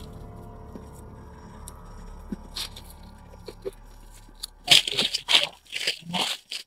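Footsteps and rustling in dry leaves and undergrowth: several short, irregular crunches in the second half, after a quiet stretch with only a faint steady hum and a few soft ticks.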